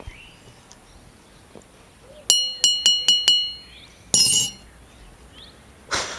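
A small bell struck five times in quick succession, each strike bright and ringing on, then a short jangling burst about four seconds in. Faint bird chirps sit underneath, and a brief scuffing burst comes near the end.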